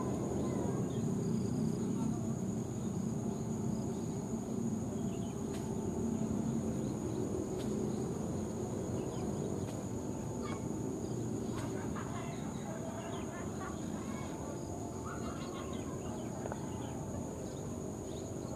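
Diesel locomotive running with a low steady rumble that eases slightly as it comes slowly in along the track. A thin steady insect buzz and scattered bird chirps sound over it.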